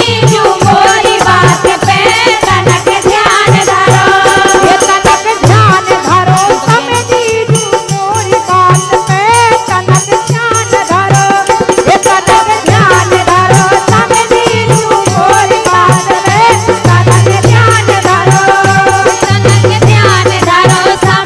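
Indian folk music for a Bundeli wedding song: a wavering melody over steady, fast drumming and a continuously shaken rattle.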